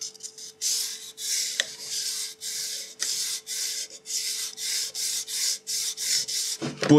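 Sandpaper rubbed by hand lengthwise along the grain of an oak workpiece, in quick back-and-forth strokes, about two or three a second, starting about half a second in.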